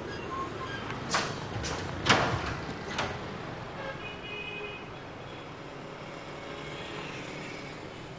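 Folding steel grille security gate and door lock being worked: four sharp metal clicks and clanks over about two seconds, the third the loudest, then a steady background hiss.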